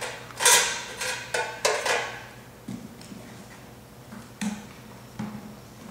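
A quick run of sharp knocks and clicks, then a few softer knocks: the fuel cap being taken off the line striper's Honda engine tank and the red gas can being picked up and handled.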